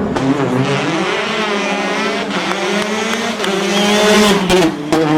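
Rally car engine running hard on a stage, its pitch shifting up and down as it is driven, loudest about four seconds in.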